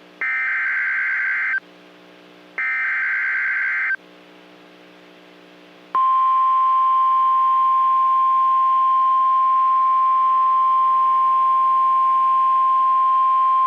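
NOAA Weather Radio alert: the last two of the three SAME header bursts, harsh warbling data tones about a second and a half each with a second's gap between them. About six seconds in, the steady single-pitch 1050 Hz warning alarm tone starts and holds. This sequence signals that a new warning, here a severe thunderstorm warning, is about to be broadcast.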